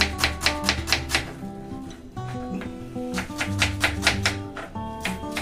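Kitchen knife chopping red onion on a wooden board: quick repeated chops at about six a second, one run in the first second and another starting about three seconds in. Plucked-guitar background music plays throughout.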